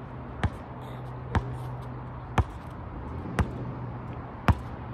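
A basketball dribbled on an asphalt court: five slow, single bounces about a second apart.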